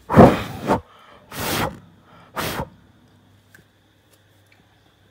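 Three sharp puffs of breath blowing out candles, about a second apart, the first the loudest.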